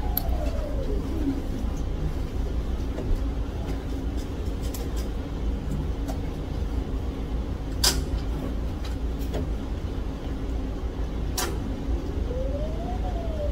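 A steady low rumble, with two sharp cracks about eight and eleven and a half seconds in.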